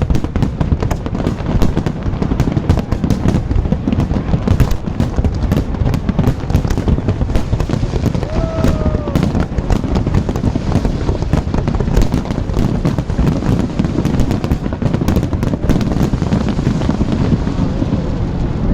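Fireworks display: a dense, rapid crackling of many small bursts over a continuous low rumble of shells going off, thinning a little near the end.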